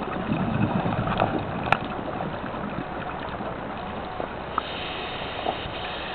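Scuba diver's breathing heard underwater: a low rumble of exhaled bubbles in the first second and a half, a few sharp clicks, then a steady hiss through the regulator near the end.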